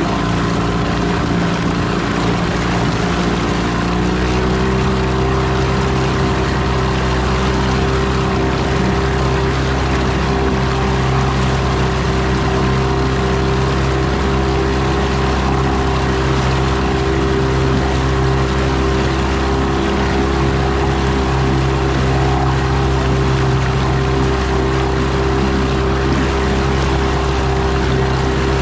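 1999 Mercury 25 hp two-stroke outboard running steadily at low speed. Its pitch steps up slightly about four seconds in and then holds, with the wake splashing behind it.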